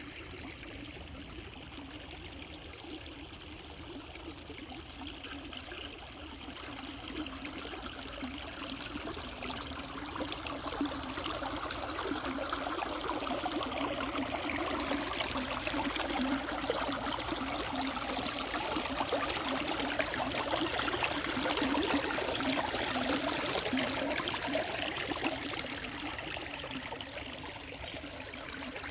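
River water spilling over rocks, a steady rushing and splashing that grows louder toward the middle and eases slightly near the end.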